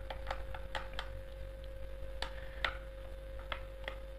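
A metal spoon stirring thick idli batter in a bowl, ticking lightly and irregularly against the bowl's sides a few times a second, over a faint steady hum.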